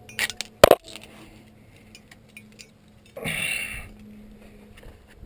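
Metal climbing gear clinking and jangling, with a sharp knock just under a second in and a short rustling hiss about three seconds in.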